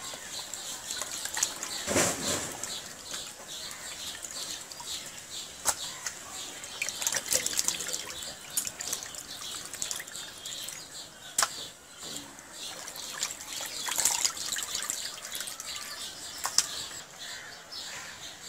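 Raw mutton pieces being washed by hand in a plastic bucket of water: irregular splashing, sloshing and dripping as the meat is rubbed and lifted from the water.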